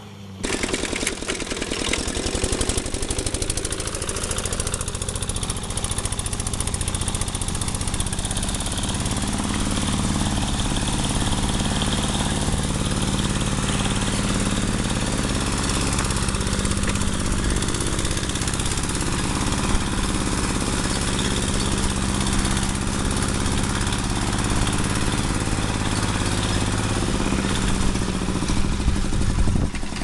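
Small engine of a homemade mini-tractor running steadily under load while it pulls a mouldboard plow through turf. It starts abruptly about half a second in.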